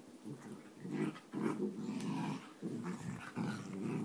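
Dogs growling in rough, rumbling bouts while play-wrestling, starting about a second in and coming in three stretches.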